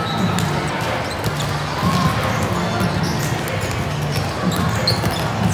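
Balls bouncing and being hit on hard court floors across a large, echoing sports hall, scattered sharp thuds over a steady hubbub of many voices.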